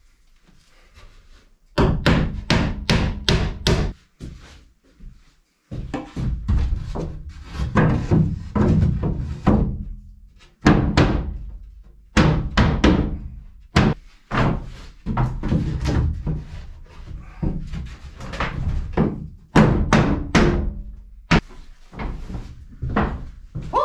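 Hammer blows on the plywood walls of a small shack, coming in quick runs of several strikes with short pauses between, each a hollow thunk with a boomy body.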